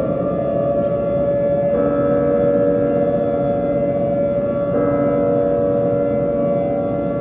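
Siren-like warning tone: several steady tones sounding together, stepping to a new pitch twice, about every three seconds.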